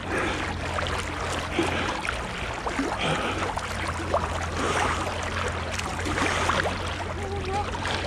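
Water sloshing and splashing around a swimmer in a cold river, in surges every second or so with the strokes, over a steady low hum.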